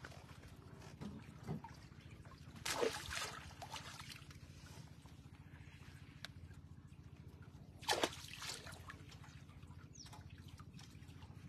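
Water splashing and trickling: two short splashes, about three seconds in and again about eight seconds in, with lighter drips and trickles around them.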